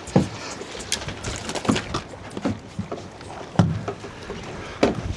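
Irregular heavy thumps and knocks on a fishing boat's deck, three loudest near the start, about three and a half seconds in and near the end, over steady background noise.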